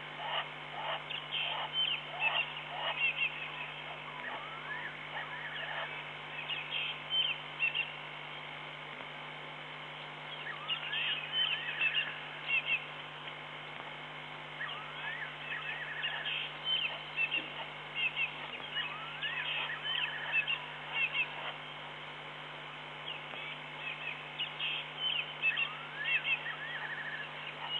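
Night-time animal calls: clusters of short, high chirps and quick rising whistles that come in bouts every few seconds, over a steady low hum.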